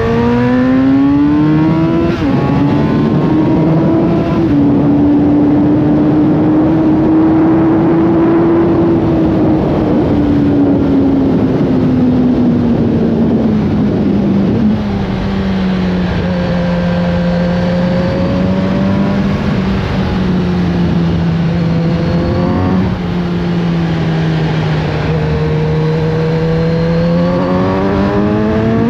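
Kawasaki Z900RS Café's inline-four engine under way: it pulls up through a gear change in the first couple of seconds, holds steady revs, eases off and slows through the middle, cruises at lower revs, then revs up again near the end. A steady rush of wind noise runs underneath.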